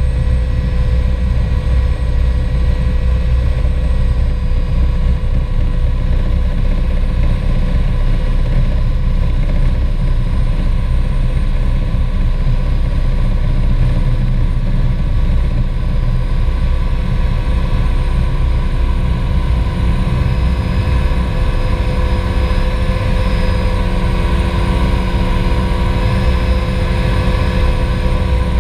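Sikorsky S-58T helicopter heard from inside the cockpit while landing: the main rotor and its twin PT6 turbine Twin-Pac running steadily, a heavy low rumble with several steady whining tones over it.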